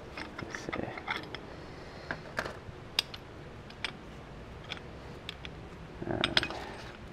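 Scattered metal clicks and clinks from a brake pad spreader tool being handled and seated against a brake caliper, with a short cluster of knocks about six seconds in.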